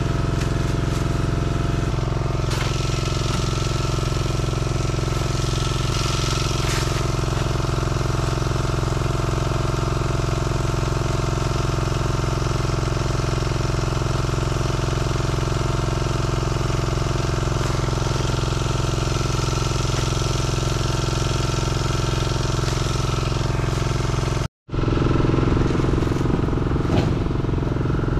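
A small engine running steadily at an even pitch. Near the end the sound drops out for a split second, then comes back a little louder and rougher.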